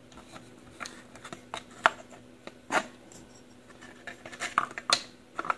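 Handling noise: irregular light clicks and knocks as a nixie clock's tube and circuit-board assembly, with its metal standoffs, is moved about and set back into its wooden case. The sharpest knocks come about two, three and five seconds in.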